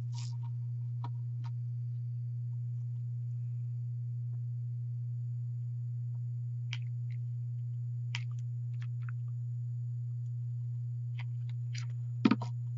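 Steady low electrical hum under faint clicks and handling of a hot glue gun being worked over burlap, with a sharp knock near the end as the glue gun is set down.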